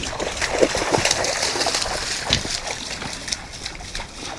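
Irregular splashing and sloshing in shallow river water, a busy patter of small splashes and crackles over the steady rush of the river.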